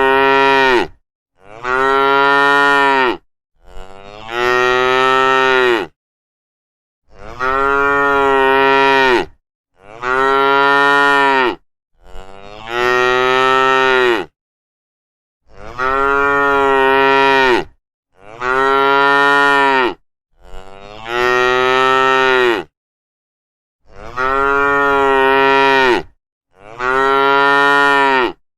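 Cattle mooing: about eleven drawn-out moos in a row, each roughly two seconds long, with short gaps between them.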